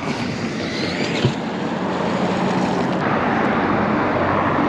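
Steady outdoor rumble of wind and passing road traffic, with a single short knock about a second in.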